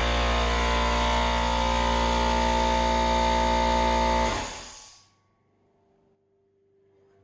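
Compressed-air ship's foghorn sounding one long, steady, deep blast of several held tones together, which cuts off about four seconds in as the air is shut off, leaving a short fading tail.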